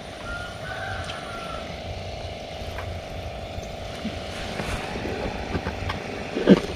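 A steady engine drone holding a constant pitch, with a few faint clicks over it.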